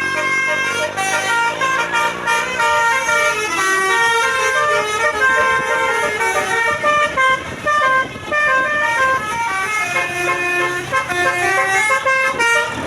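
Basuri musical 'telolet' bus horn playing a rapid tune of short notes stepping up and down in pitch. A lower sound falls in pitch under it during the first few seconds.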